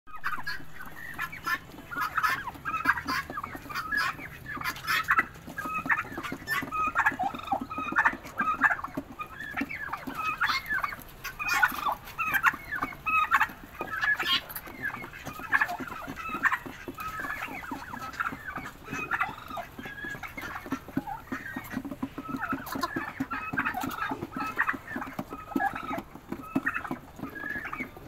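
A flock of domestic turkeys and other poultry calling and clucking, many short overlapping calls with no pause.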